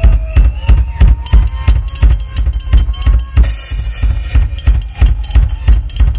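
Live rock drum kit solo: fast, steady bass drum pulses under snare and tom hits, with a cymbal crash a little past halfway.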